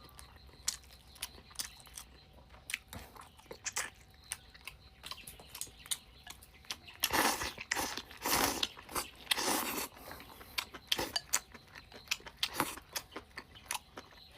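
A person eating chicken stewed with deer antler mushrooms close to the microphone: wet chewing and biting with many small clicks, louder for a few seconds past the middle.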